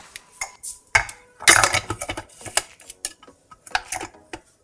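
The plastic work bowl and blade of a KitchenAid 3.5-cup food chopper being handled and fitted back onto the base: a run of hard plastic knocks and clatters, the loudest a little over a second in.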